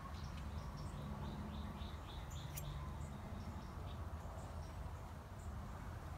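Small bird chirping: a quick run of short high notes, with a few scattered chirps around it, over a steady low rumble.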